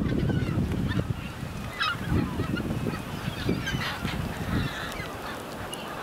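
A large flock of seagulls calling, many short cries overlapping throughout, over a low rumble that fades after the first second or so.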